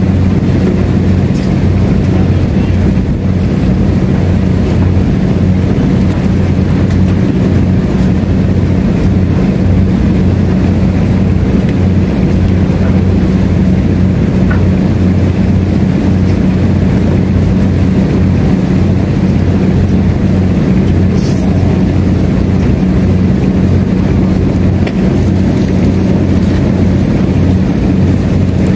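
An engine running steadily with a constant low drone.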